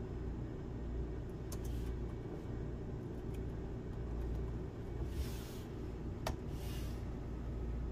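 A steady low background hum, with a few faint sharp clicks and two short brushing noises.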